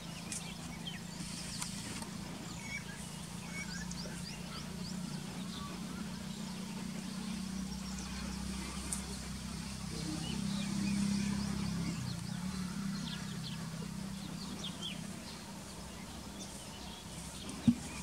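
Outdoor ambience of a dry field: faint, scattered high bird chirps over a steady low hum that swells about ten seconds in. A single sharp click comes near the end.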